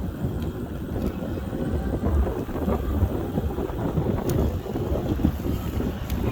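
Wind buffeting the microphone with a low, uneven rumble, as heard while riding an electric scooter at speed.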